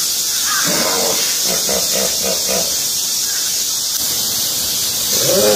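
Hippopotamus calling in a run of short pulsed grunts, about four a second, for about two seconds, with a second run starting near the end. A steady high hiss sits underneath.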